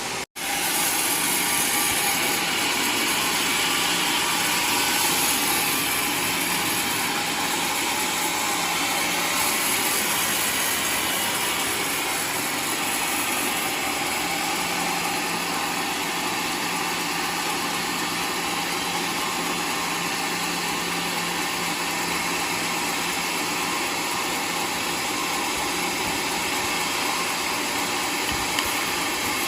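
Homemade sawmill running steadily as it saws a waru wood log, a continuous even machine noise with a faint low hum under it.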